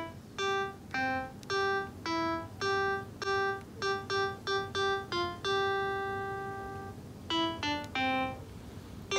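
A simple melody played one note at a time on a piano-like keyboard, about twenty short notes, with one long held note in the middle that slowly fades before the quick notes return.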